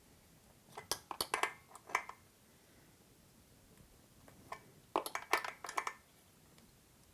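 Metal clicks and clinks of a wrench working the seat-clamp nuts on a bike's seat post as they are tightened, in two short bursts: one about a second in, another about five seconds in.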